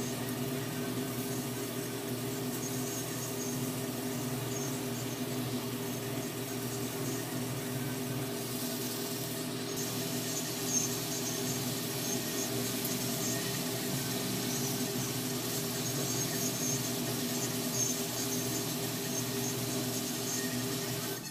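A steady low hum of even tones, with faint high squeaking flickering over it. One light tap about eleven seconds in.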